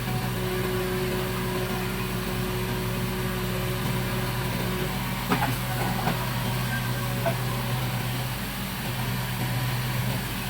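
Heavy diesel engine running steadily at a low, even speed, with a couple of short metallic knocks about five to six seconds in.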